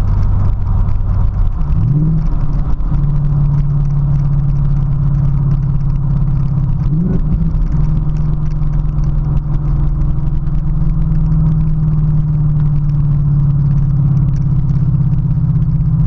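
A 2017 Ford Mustang GT's 5.0-litre V8 running through a Magnaflow Competition cat-back exhaust while driving, heard from inside the car as a steady drone. Its pitch rises sharply about two seconds in and settles higher as the revs climb, then rises briefly again about seven seconds in.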